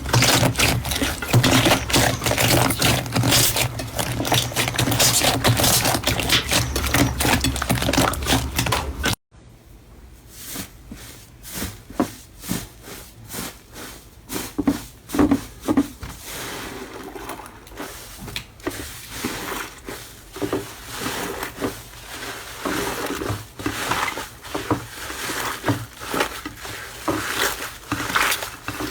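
Slime being squeezed and poked by hand: a dense run of small crackles and squelches, then a sudden cut about nine seconds in to a quieter run of softer, separate squishes that grows busier near the end.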